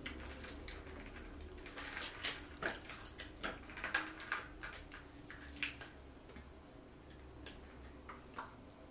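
Quiet, irregular wet clicks and crackles of boiled shellfish being picked apart by hand and eaten, over a faint low hum.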